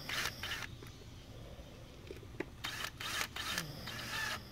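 Ryobi cordless drill driving short screws into a metal box, running in short bursts: one at the start and several more near the end.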